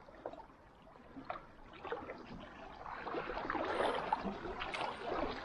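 Sea water lapping and gurgling against the rocky shoreline, faint at first and busier from about halfway.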